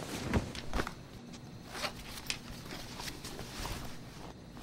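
Clothing rustling, with a few soft knocks and footfalls, as a person gets up and reaches into his clothes.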